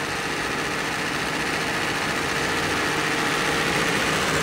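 Jeep Grand Cherokee engine idling steadily under the open hood.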